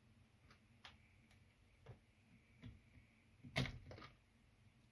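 Small plastic clicks and taps from a Renault key card's plastic shell being prised open and its circuit board handled, about six scattered clicks with the loudest snap about three and a half seconds in.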